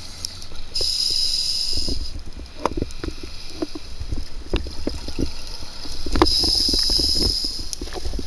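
Scuba diver breathing through a regulator underwater: two hissing inhalations about five seconds apart, each followed by an irregular crackling, gurgling rush of exhaled bubbles.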